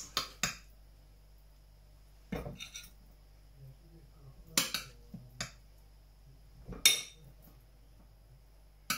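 Metal spoon and fork clinking against a white ceramic baking dish and a plate as food is scooped out and served: about eight short, sharp clinks, scattered a second or two apart.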